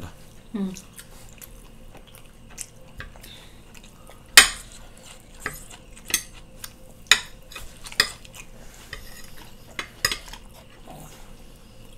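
Metal chopsticks and a spoon clinking and scraping against ceramic plates and bowls: scattered sharp clicks, the loudest a little over four seconds in.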